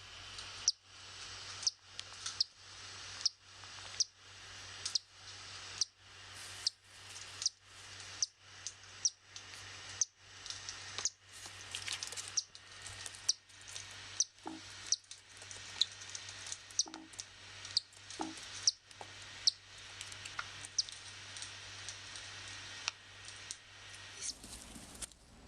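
Newly hatched cockatiel chick peeping over and over, short high cheeps a little more than once a second.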